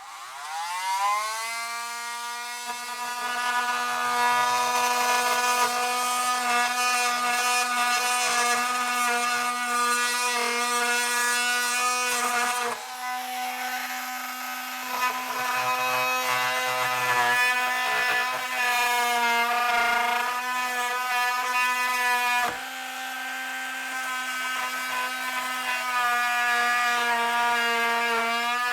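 Milwaukee M12 cordless oscillating multi-tool spinning up and cutting into a small piece of pine, a steady buzzing whine whose pitch wavers as the blade bites. The sound dips sharply for a moment twice, about midway and again later on.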